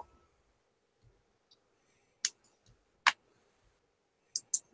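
Computer mouse clicking while editing curve nodes: a single click a little over two seconds in, another under a second later, and a quick pair near the end.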